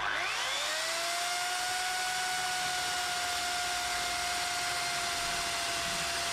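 Makita electric chainsaw spinning up, then running at a steady high whine as it cuts a half-depth notch into an 8x8 cm square timber beam.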